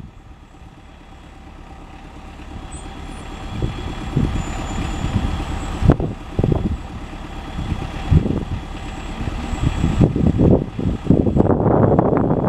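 2TE10M twin-section diesel locomotive running light and approaching, its 10D100 two-stroke diesel engines growing steadily louder as it nears. Uneven low surges, louder near the end, ride on the engine sound.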